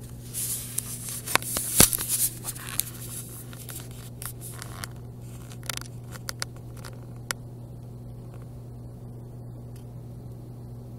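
Handling noise: scraping, rustling and sharp clicks, dense in the first three seconds and thinning to scattered clicks until about seven seconds in, over a steady low hum.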